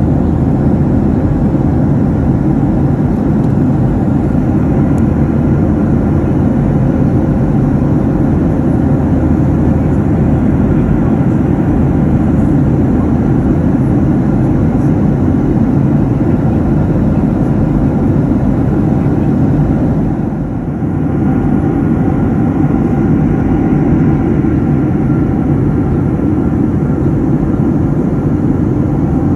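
Steady roar of a Boeing 737 jet airliner in flight, engine and airflow noise heard from inside the passenger cabin, easing briefly about twenty seconds in.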